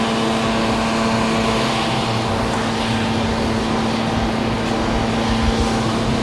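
An engine running steadily with a constant droning hum that neither rises nor falls.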